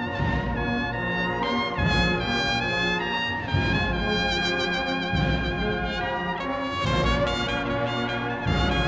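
Cornetas of a Spanish cornet-and-drum processional band playing a slow, expressive solo melody in held notes over sustained low accompanying chords.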